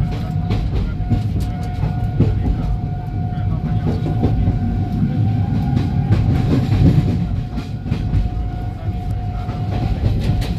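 Old ICF-built Indian Railways passenger coach running, heard from inside: a steady rumble with irregular clicks of the wheels over rail joints and points, and a steady thin whine throughout.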